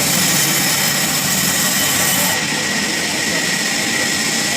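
Sawmill machine running steadily: a continuous mechanical noise with a steady high whine and no pauses.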